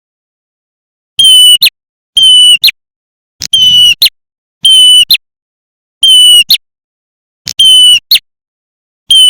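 Recorded prenjak (prinia) lure call played on a loop. A loud, piercing half-second note, each ending in a short sharp flick, is repeated seven times at a steady pace of a little more than one a second.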